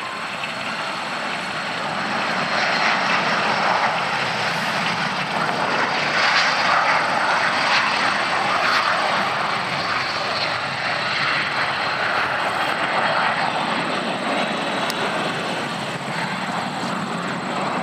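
Jet roar from a formation of L-39 Albatross jet trainers on a formation takeoff. It swells a couple of seconds in as they pass, then holds loud and steady with a slight easing.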